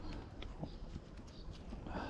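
A few faint, scattered clicks and knocks over low background noise.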